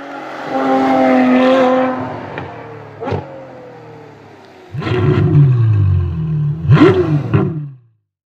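Car engine revving, its pitch rising and falling. It drops back to a quieter falling tone partway through, then comes back loud and suddenly about five seconds in, with a sharp rev spike near the end before it cuts off.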